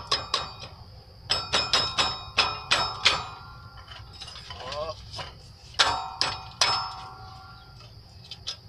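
Sharp metal-on-metal taps on the rear shock's lower mounting bolt of a moped, each ringing briefly. They come in three quick runs of about three strikes a second as the bolt is knocked loose.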